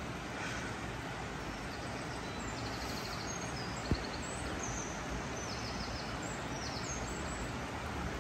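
Steady rush of a river flowing through a gorge, with small birds singing high, quick chirps through the middle. A single sharp tap is heard about four seconds in.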